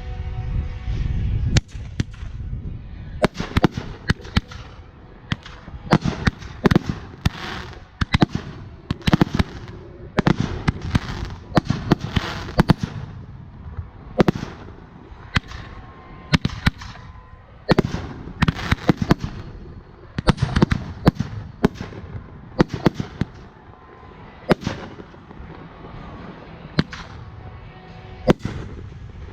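Fireworks going off: a long run of sharp bangs and crackles at irregular intervals, some single and some in quick clusters. A low rumble sits under the first second or so.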